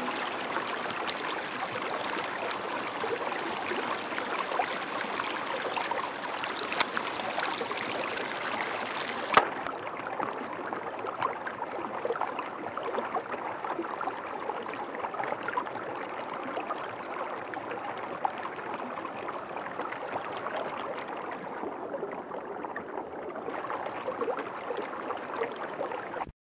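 A steady trickling, gurgling noise like running water, flecked with small irregular clicks, with one sharper click about nine seconds in.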